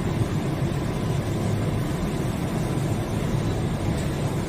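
Steady low hum and rumble of factory background noise, unchanging, with a faint thin tone above it.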